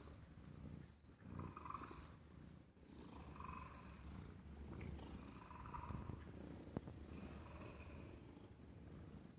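Domestic cat purring close to the microphone, a faint low steady rumble, with a short higher-pitched note every couple of seconds and a single brief click about two-thirds of the way through.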